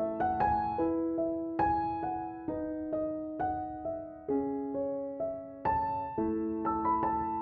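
Background music: a gentle solo piano melody, notes struck about every half second and left to ring.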